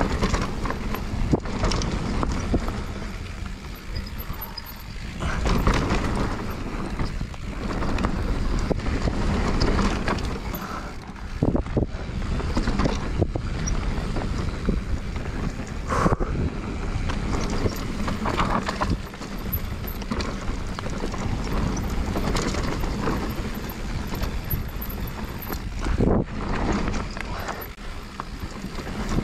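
Mountain bike riding down a rough dirt trail: a constant rumble and rattle from tyres and bike over the bumps, with many sharp knocks and wind buffeting the microphone.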